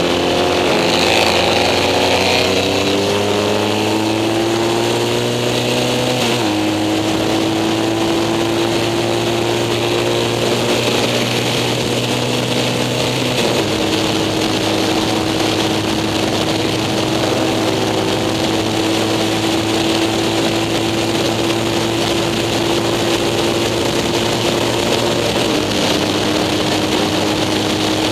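Racing sidecar motorcycle engine heard onboard at full throttle, its pitch climbing and then dropping sharply at two upshifts, then holding high and nearly steady down the straight with a slight dip near the end. Constant wind rush over the microphone.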